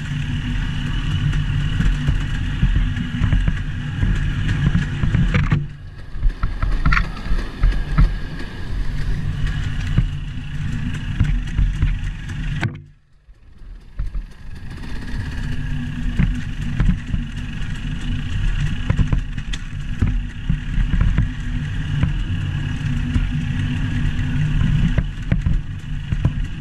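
A motor vehicle's engine runs steadily with a low rumble. The sound dips briefly about six seconds in and drops to near silence for about half a second around thirteen seconds in.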